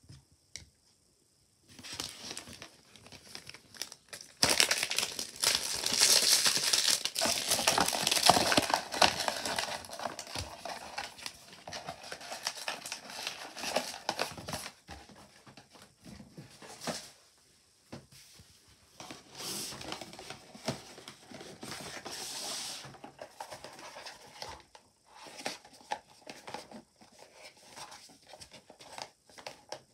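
Plastic packaging crinkling and rustling as it is handled, loudest for about ten seconds starting some four seconds in, with a shorter spell of crinkling later on.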